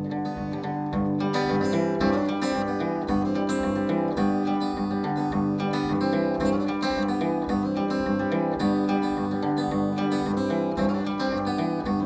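Acoustic guitar played solo, chords picked and strummed in a steady rhythm, filling out a little about a second in; the instrumental opening before the vocal comes in.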